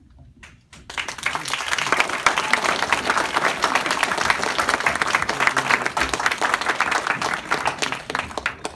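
Audience applauding: a couple of single claps, then full applause that starts about a second in and dies away near the end.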